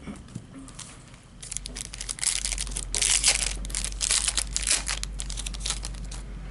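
Plastic wrapper crinkling and rustling as a trading card pack is handled and opened, starting about a second and a half in and thinning out near the end.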